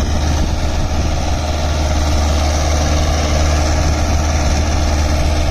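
Mahindra 575 DI XP Plus tractor's four-cylinder diesel engine running steadily under load while pulling a tine cultivator through the soil.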